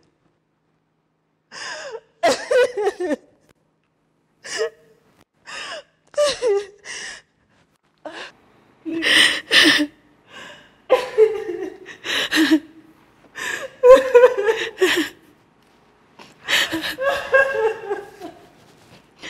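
A woman's gasping, breathy laughter in many short bursts, growing louder about halfway through.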